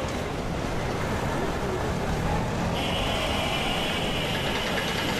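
Busy street traffic noise, motorcycles and auto-rickshaws going by, mixed with wind rumbling on the microphone. A steady high hiss joins a little past halfway.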